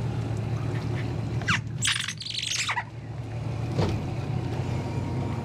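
Yamaha 250 outboard idling with a steady low hum while birds call in a quick cluster of high chirps about one and a half to three seconds in.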